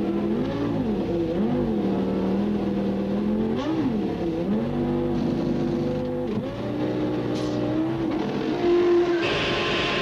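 1995 Formula One car engines running at high revs. Their pitch drops sharply and climbs back several times with the gear changes, and a rush of hiss joins near the end.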